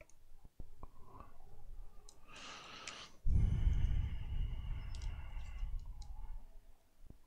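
Light clicks and taps of small tools and parts being handled at a phone-repair bench. A short rush of breath-like noise comes about two seconds in, followed by a low rumble of handling for a few seconds.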